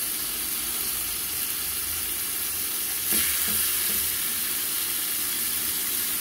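Thin marinated chicken breast fillets sizzling as they fry in a little hot oil in a frying pan. The sizzle swells about three seconds in as another fillet is laid in.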